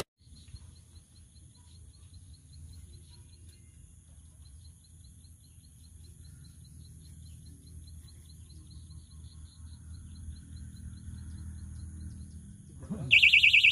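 Quiet lakeshore ambience: a low rumble of wind, faint steady insect buzzing, and a rapid run of faint chirps in the first few seconds. Near the end a loud, rapid electronic beeping starts, just after a short rising sound.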